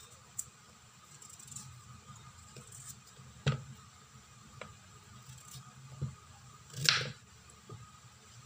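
Kitchen knife cutting a peeled potato on a wooden chopping board: a few sharp knocks of the blade against the board, and one louder, longer scrape about seven seconds in.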